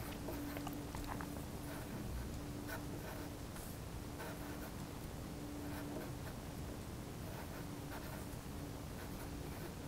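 Pencil writing on paper: faint, irregular scratching strokes.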